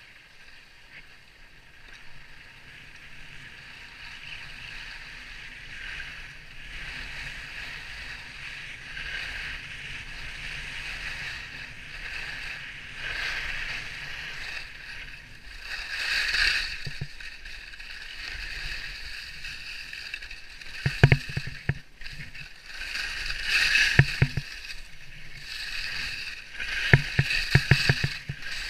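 Skis hissing and scraping over packed snow, getting louder as speed builds. In the last third a few clusters of sharp clattering knocks stand out above the hiss.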